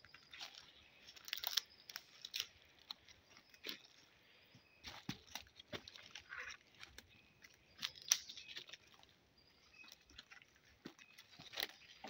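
Footsteps crunching through dry leaf litter and twigs on a forest floor: irregular crunches and snaps at an uneven walking pace.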